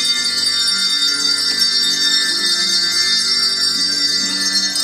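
Handbell choir playing a tune: many ringing bell notes overlapping and sustaining, with new notes struck every half second or so.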